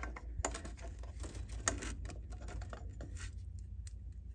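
Irregular light metallic clicks and taps as a new aluminum thermostat housing is set in place on the engine and its bolts are inserted by hand.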